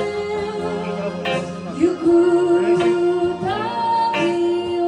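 Woman singing a slow Japanese song live into a microphone, holding long, steady notes, with electric guitar accompaniment.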